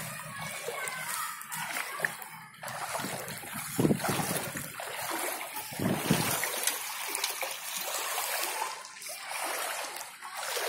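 Floodwater splashing and trickling in a waterlogged street while rain falls on the water, with a couple of louder splashes about four and six seconds in.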